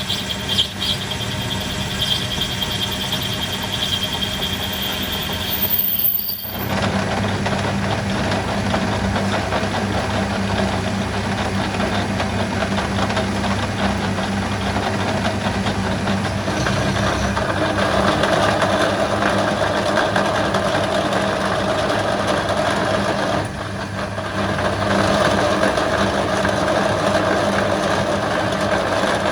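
A motor-driven workshop machine running steadily with a constant hum. The sound breaks off briefly about six seconds in and again near the end, then carries on.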